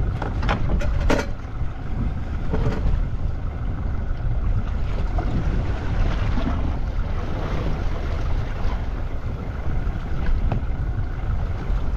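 Wind buffeting the microphone over the wash of choppy sea water, with a few short sharp knocks in the first three seconds.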